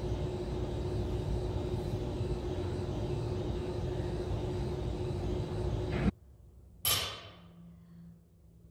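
Steady room hum with a steady tone that cuts off abruptly about six seconds in. About a second later comes a single sharp clank of barbell weight plates, ringing briefly as it dies away.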